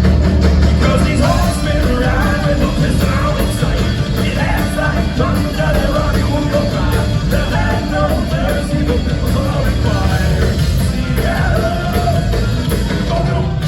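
Loud live thrash-grass band, a blend of thrash metal and bluegrass, playing hard and continuously, with a voice singing and shouting over it from about a second in.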